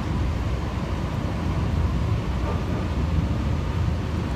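Steady low rumble of a moving UTA TRAX light-rail car, heard from inside the passenger cabin.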